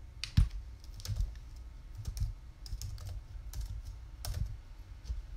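Typing on a computer keyboard: irregular key clicks with a few sharper strikes, the loudest about half a second in.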